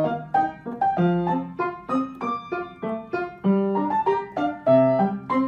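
Background piano music: a melody of separate notes struck several times a second, each dying away quickly.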